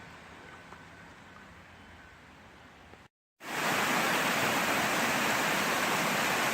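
Rushing creek water, a loud steady hiss that starts suddenly just past the middle after a faint, quiet background and a brief moment of silence.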